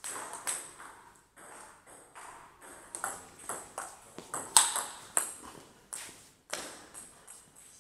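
Table tennis rally: the ball clicking off the players' rubber-covered bats and bouncing on the table, a sharp tock roughly twice a second, each with a short ring, the loudest hit about halfway through.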